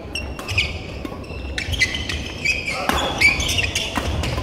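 Badminton doubles rally on a wooden court: several sharp racket hits on the shuttlecock, with sneakers squeaking and feet thudding as the players move.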